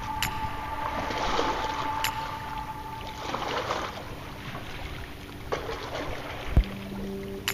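Wind rushing on the microphone with water moving along the shore, a held tone in the background stopping about three seconds in, and a single sharp thump near the end.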